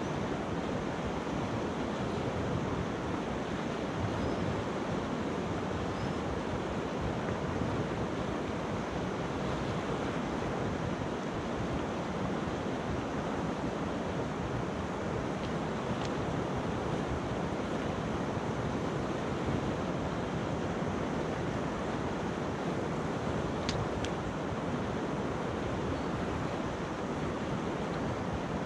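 Steady rush of a fast, clear mountain river flowing over stones and pebbles.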